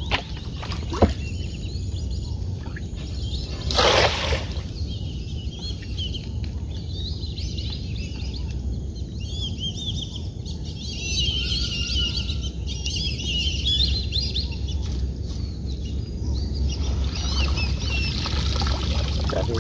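Water pouring and dripping off a cast net as it is lifted from the water near the end, with birds chirping. A short, loud burst of noise comes about four seconds in.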